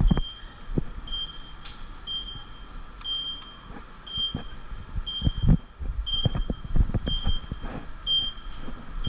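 A high electronic beep repeating about once a second, each beep short. Under it run irregular low thumps and knocks, with a few sharp clicks.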